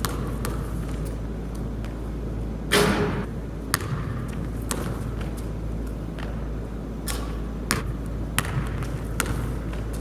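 Basketball play on a court: a ball bouncing in scattered sharp hits, with one longer, louder impact about three seconds in, over a steady low hum.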